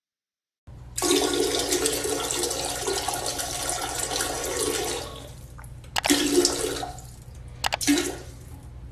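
Toilet flushing: a loud rush of water starting about a second in and dying away after about four seconds, followed by two shorter bursts of sound.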